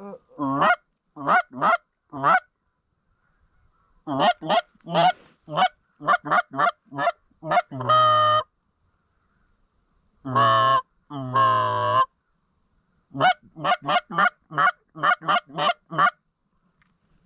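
A hunter's handheld goose call imitating Canada geese, blown in runs of quick clucks and honks, with a few drawn-out long honks in the middle, then a fast string of clucks near the end.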